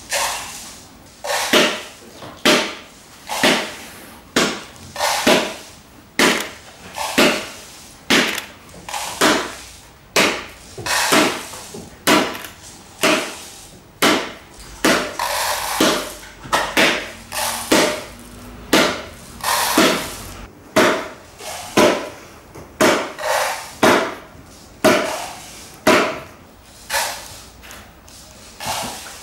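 A steady series of sharp knocks, about one a second, sometimes two close together, each ringing out briefly.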